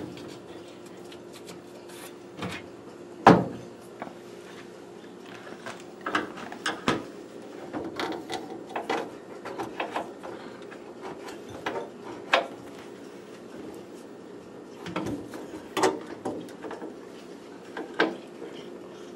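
Irregular small clicks, scrapes and knocks of a screwdriver and hinge hardware while unscrewing a kitchen sink cabinet's door hinges, with one sharper knock about three seconds in. A faint steady hum runs underneath.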